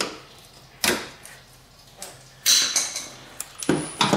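Hand work on the plastic fender-liner fasteners in a wheel well: two sharp clicks in the first second, then a short whirring burst from a cordless driver about two and a half seconds in, and a few lighter clicks near the end.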